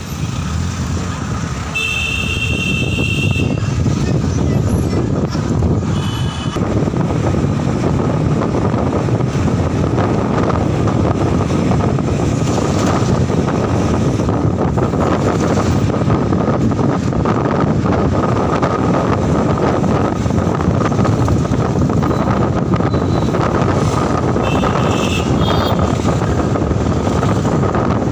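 Steady engine and road noise of a moving vehicle heard from on board, with short horn beeps from traffic about two seconds in, again around six seconds, and a few more near the end.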